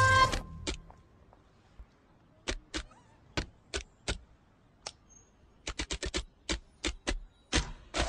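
Typewriter keys clacking as a sound effect: single sharp strikes spaced out, then a quick run of them about six seconds in. A swelling sound cuts off sharply right at the start.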